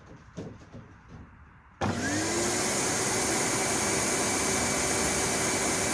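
Numatic Henry HVR200-22 push-button vacuum cleaner switched on about two seconds in: its motor spins up with a quick rising whine and then runs steadily on high speed. A few faint knocks come before it starts.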